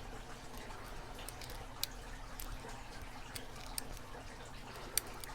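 Faint, irregular small metallic clicks and scrapes of a snake rake and tension wrench working the pins inside an Abus 8345 padlock during picking.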